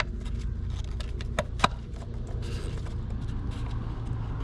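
Small clicks and taps of an oil filter element and its housing parts being handled and fitted, with one sharper click about a second and a half in, over a steady low hum.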